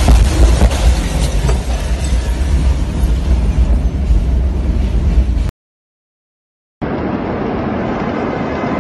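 Blast of the Beirut port ammonium-nitrate explosion just after its shock wave hits, heard from inside a car: a loud, heavy low rumble with a few sharp knocks as the phone is jolted. It cuts off suddenly about five and a half seconds in, and after a second of silence a steady rushing noise follows.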